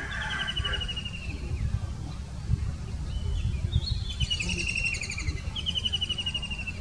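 White-throated kingfisher calling: three fast rattling trills that fall in pitch, one at the start and two longer ones in the second half.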